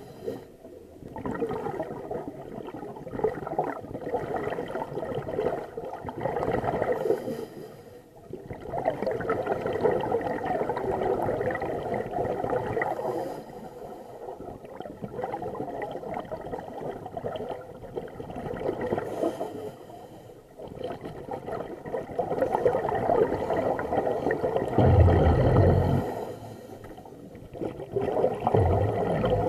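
Scuba regulator exhaust bubbles heard underwater through the camera housing: a rushing, gurgling surge with each breath out, several seconds long and repeating every few seconds with short lulls. A low knock comes near the end.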